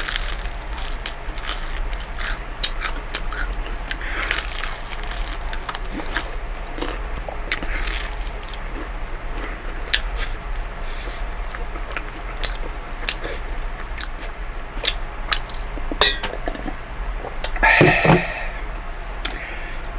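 A person biting and chewing crispy fried chicken close to the microphone: many small crisp crunching clicks. Near the end comes a louder breathy sound as he catches his breath.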